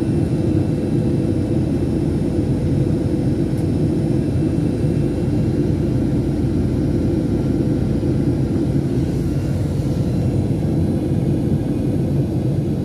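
Airliner engine noise heard inside the passenger cabin in flight: a steady, unbroken low drone with faint steady hums above it.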